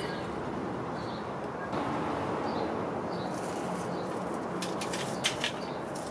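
Steady background noise with faint, short, high bird chirps repeating every half second or so, and two sharp clicks near the end.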